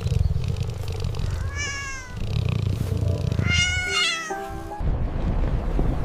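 Cat meowing twice, a short falling call and then a higher, wavering one, over a continuous low rumble.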